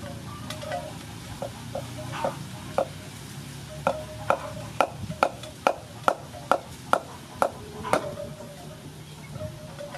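Cleaver knocking into a hard green Feroniella lucida fruit and the wooden chopping board beneath it as the fruit is cut in half: a few scattered knocks, then an even run of about ten sharp chops, two or three a second, ending a couple of seconds before the close.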